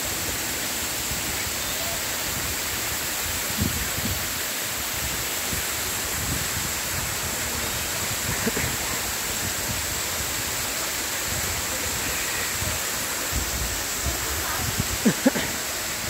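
Steady rush of a waterfall: water pouring down a rock face into a pool.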